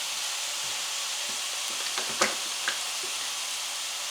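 A skillet of ground beef, pasta and tomatoes giving a steady sizzling hiss, with a few short taps about two seconds in.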